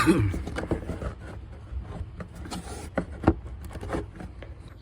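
Scattered clicks, taps and knocks of hand tools and parts being handled while fasteners are taken out, the loudest knock right at the start, over a steady low hum.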